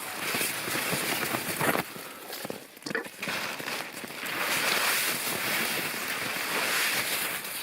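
A rushing, wind-like noise that swells twice: briefly in the first two seconds, then longer and louder through the second half, with a few faint knocks in between.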